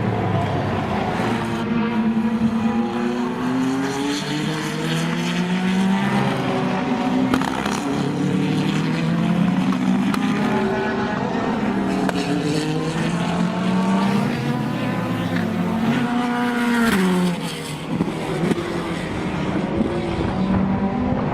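Chevrolet Corvette C8.R race car's 5.5-litre V8 at full throttle on track, its pitch repeatedly climbing and dropping through gear changes. Several engines overlap as cars pass, one swelling loudly and falling away near the end.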